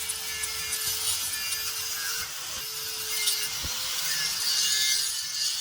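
Steady rasping scrape of a hand tool cutting into metal threads, with a faint steady hum beneath it and a single light knock near the middle.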